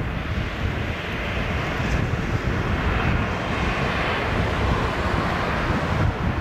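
Airbus A380-841's four Rolls-Royce Trent 970 turbofans on final approach at low height: a steady deep rumble with a rushing jet roar on top that swells slightly midway as the airliner draws nearer.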